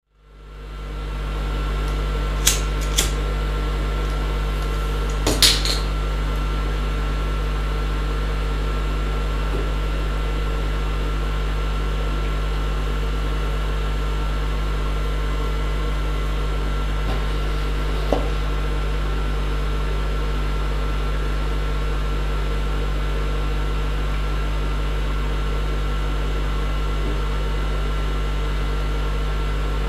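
Steady low machine hum with a faint steady tone above it, broken by a few short clicks and taps about two to six seconds in and once more near the middle.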